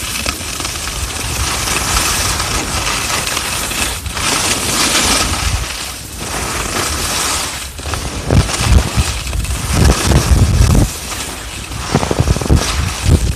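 Skis hissing and scraping over packed snow on a downhill run. From about eight seconds in, gusts of wind buffet the microphone in low, uneven bursts.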